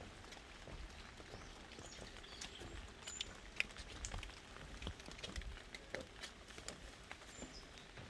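Light rain in a forest: drops tapping irregularly on leaves, with a few short, high bird chirps.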